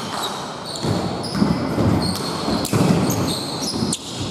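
Basketball game sounds in an echoing gym hall: a ball bouncing and players moving on the court, with short high squeaks.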